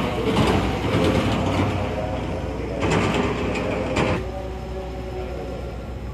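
Electric commuter train coming into the platform, with mechanical rattling and clanking from the wheels and rails in two louder bursts, the second about three seconds in, over a steady hum.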